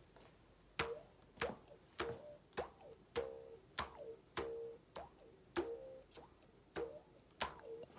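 Mouth bow: the string of a small stick bow plucked about a dozen times at a steady beat, roughly twice a second, with one end of the bow held in the player's mouth as a resonating chamber. Each pluck is a short ringing twang.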